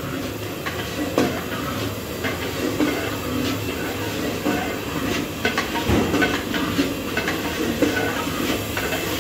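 Gas burner running steadily with a continuous rush under a large metal cooking pot, while a long metal ladle stirring thick lentil haleem scrapes and knocks against the pot now and then.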